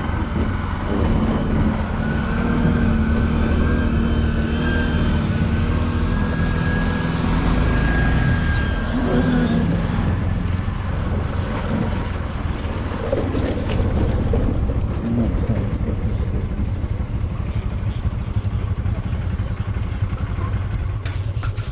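A motor vehicle's engine running steadily while under way, a low rumble with road noise.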